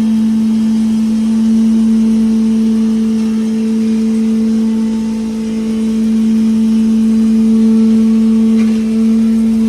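Wood chipper / wood powder machine running steadily with a strong, even hum, its level easing slightly about halfway through.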